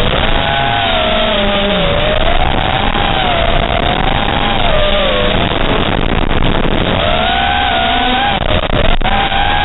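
Five-inch FPV racing quadcopter's brushless motors and propellers whining, the pitch rising and falling smoothly as the throttle changes through the turns. A sharp click about nine seconds in.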